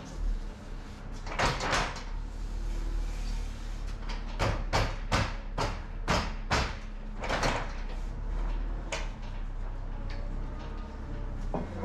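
Sharp knocks and rattles from the side frame and fittings of a curtain-sided trailer being handled. One comes early, then a quick run of about seven in the middle and one more later, over a steady low hum.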